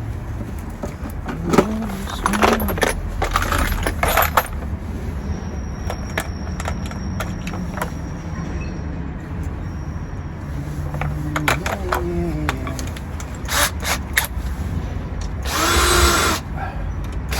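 Power drill running in a short whining burst near the end, with scattered clicks and knocks of tools being handled before it.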